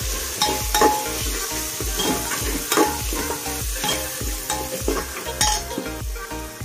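Steel ladle stirring and scraping a spiced onion and capsicum masala frying in an aluminium pressure cooker: a steady sizzle with repeated clinks and scrapes of the ladle against the pot.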